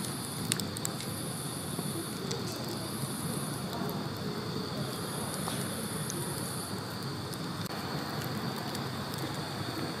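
Wood burning in a Phoenixrise OverDrive2 metal box fire pit: a steady rush of flame with a few sharp crackles and pops. Insects trill high and steady in the background.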